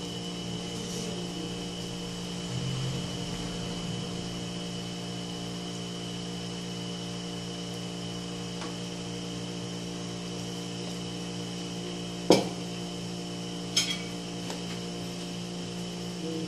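Steady background hum with quiet handling of a cream pouch over a ceramic bowl. About twelve seconds in comes a sharp knock, and a second later a ringing clink, as a metal spoon meets the bowl.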